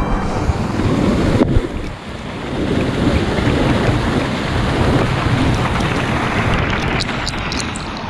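River water rushing and splashing hard against a camera's microphone as it moves through churning current beside swimmers in inner tubes, briefly dropping in level about a second and a half in, with sharp droplet ticks near the end.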